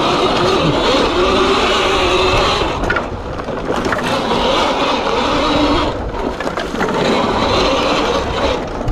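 CAKE electric motocross bike ridden hard through loose dirt berms: its electric motor whines under throttle while the knobbly tyres tear and spray the soft dirt. The sound dips briefly about three and six seconds in.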